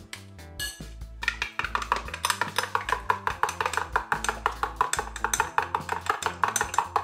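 Background music with a quick, steady percussive beat, thinning out briefly in the first second before coming back in full.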